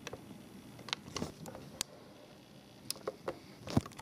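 Scattered light plastic clicks and taps from a plastic toy figure on a clear plastic display base being turned by hand, about nine in all; the loudest knock comes near the end.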